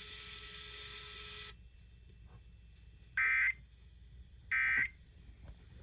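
Emergency Alert System end-of-message code: short, shrill digital data bursts about 1.3 seconds apart, twice, signalling the end of the alert. Before them, the broadcast channel's hiss with a faint steady hum cuts off about a second and a half in.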